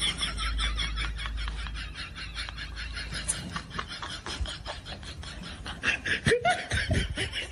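Rapid snickering laughter, a string of short, quick pulses, with a few lower voice sounds about six seconds in.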